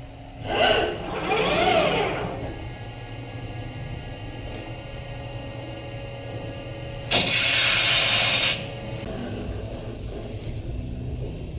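Matsuura MC500V vertical machining centre spindle running up, with pitch rising and falling at first, then running steadily with a whine of several tones. About two-thirds of the way through, a loud rushing hiss lasts about a second and a half.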